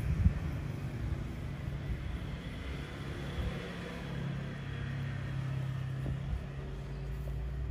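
A steady low rumble with a hum that grows stronger about halfway through, and a brief knock near the start.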